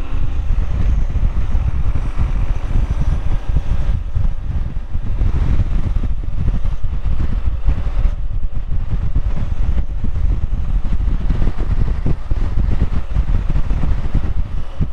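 Heavy wind rumble on the microphone of a motorcycle riding at road speed, with the BMW R1100GS's boxer-twin engine running under it.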